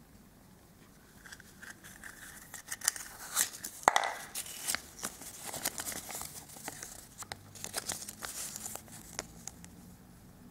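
Folded paper insert leaflet from a Kinder Surprise egg being handled and unfolded: irregular crinkling and rustling with sharp crackles, the loudest snap about four seconds in.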